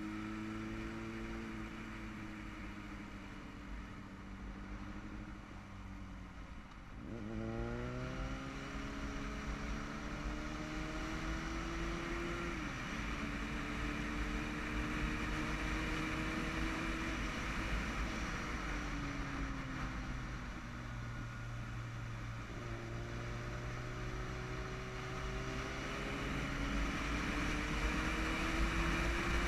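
Yamaha motorcycle engine heard from the rider's helmet over wind rush, the revs changing with the throttle and gears. The revs sink at first, jump sharply about seven seconds in, climb and then drop suddenly at a gear change, and climb again towards the end, growing louder.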